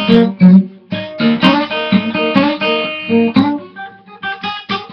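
Acoustic guitar strummed in a rhythmic blues pattern, with chord strokes and bass notes. It drops to lighter, quieter strokes after about three and a half seconds.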